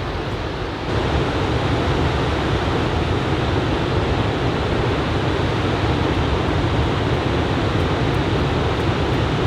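Ocean surf from a typhoon swell breaking along a sandy beach: a steady rushing wash of water that gets louder about a second in.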